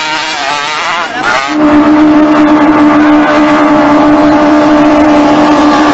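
Racing long-tail boat engines running flat out. For the first second and a half the engine note wavers up and down. Then it gives way to a louder, steady, high-pitched engine drone that holds on.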